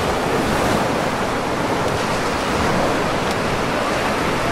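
Ocean surf washing up on a sandy beach: a steady, even rush of breaking waves.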